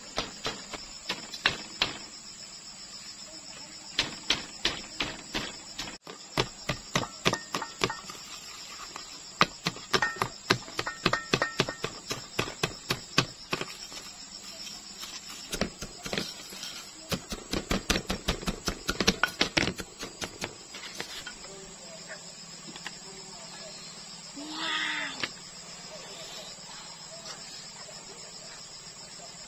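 A wooden stick pounding chili peppers and salt in a small ceramic bowl: quick taps, about three to four a second, in runs with short breaks, stopping about two-thirds of the way through. Insects chirr steadily in the background.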